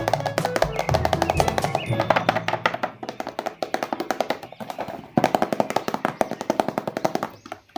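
Background music: a bouncy tune of rapid, short repeated notes, with a bass line under the first three seconds that then drops away; it fades out just before the end.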